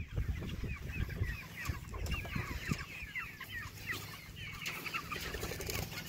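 A flock of Cornish Cross meat chickens calling, many short high-pitched cheeps overlapping without a break.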